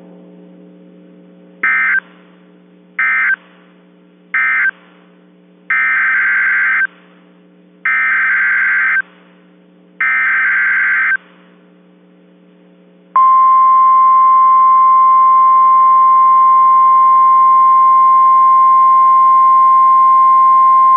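NOAA Weather Radio alert data tones: three short, buzzy SAME end-of-message bursts, then three longer SAME header bursts announcing a new alert. About 13 seconds in, the steady 1050 Hz Warning Alarm Tone starts and holds.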